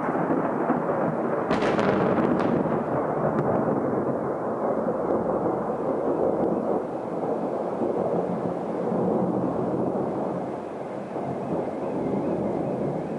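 Thunder rumbling on and on in a thunderstorm, rising and falling in loudness, with a brief sharper crackle about a second and a half in.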